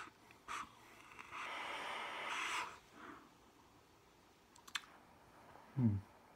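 A long drag on a dripping-atomizer vape: the air drawn through the atomizer gives a steady airy hiss for about a second and a half, then the vapour is blown out. A few light clicks follow, and near the end there is a short low falling hum.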